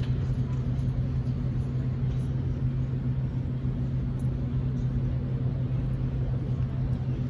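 Steady low hum with a rumble underneath: the background noise of a large arena hall, with no distinct events.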